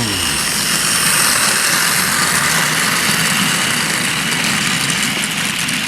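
Battery-powered Trackmaster toy train running along its plastic track, a steady whir from its small electric motor and wheels.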